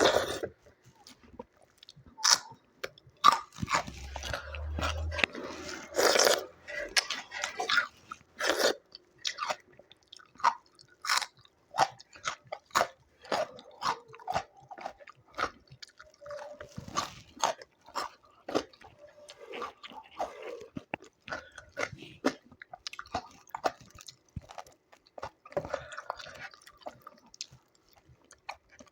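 A person eating close to the microphone: chewing and biting food, with many irregular short, sharp crunches.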